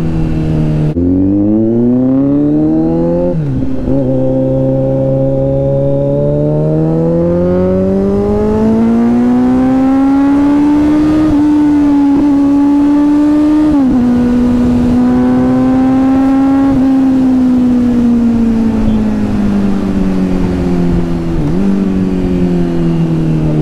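Kawasaki Z900's inline-four engine pulling under way. Revs climb and drop sharply at upshifts about three seconds in and again near fourteen seconds, then hold steady, then fall slowly over the last several seconds as the bike eases off.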